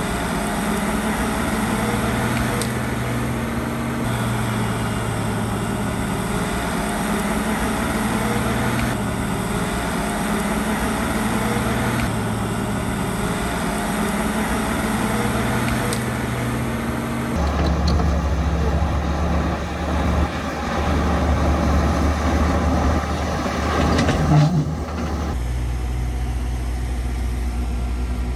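Heavy diesel earthmoving machinery running, the engine note stepping up and down every few seconds. The sound changes abruptly twice, about two-thirds of the way through and again near the end, to a deeper engine drone.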